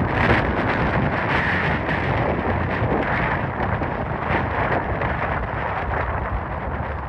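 Engine noise of an aircraft taking off, a steady rush that slowly fades as it climbs away, with wind buffeting the microphone.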